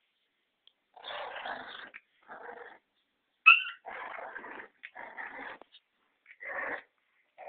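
Bull terrier and Staffordshire terrier puppies growling as they fight, in rough bursts of up to about a second with short pauses between them, and one short, sharp yelp about three and a half seconds in.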